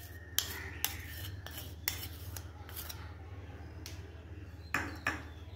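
Plastic spoon clicking and scraping as condensed milk is spooned from a cup into a stainless steel bowl of flour: a run of light, irregular taps, over a steady low hum.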